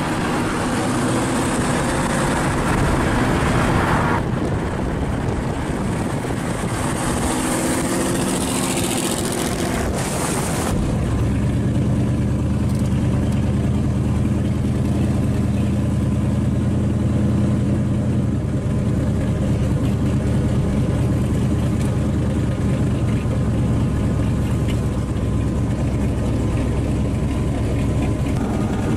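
Supercharged V8 in a Chevy Vega running on the road, mixed with wind and road noise. About ten seconds in it changes abruptly to the engine idling steadily, heard from inside the car.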